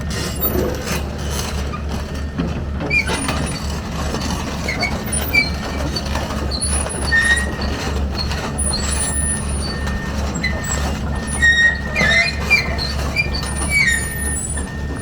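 Komatsu PC210LC-10 hydraulic excavator running, its diesel engine a steady low drone, with repeated short metal squeals and clanks, busiest near the end.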